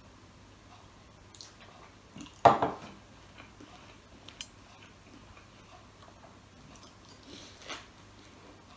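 A drinking glass set down on the table with a loud knock about two and a half seconds in, among soft eating sounds, with a bite into a hamburger near the end.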